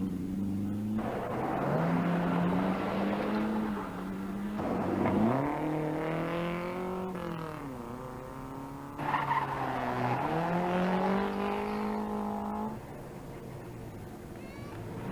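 Rally car engine revving hard on a stage, its pitch climbing and dropping several times as it changes gear and slows for corners.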